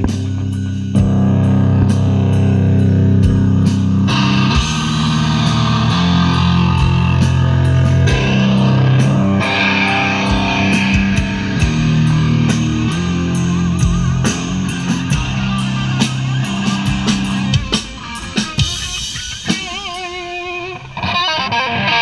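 A rock band plays on stage: electric guitar over bass notes, with a drum kit keeping a steady cymbal beat. Near the end the playing thins out to a wavering effected guitar tone before the full sound returns.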